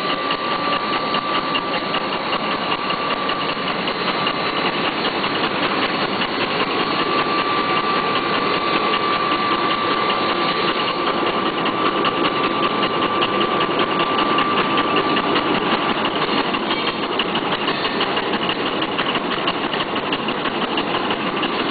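Mini pocket-handkerchief tissue machine running at speed: a fast, even mechanical clatter with a steady high tone.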